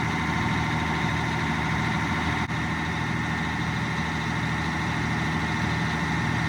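Caterpillar D8N bulldozer's six-cylinder diesel engine running steadily, back up and running after its no-start repair, with its charging system under test.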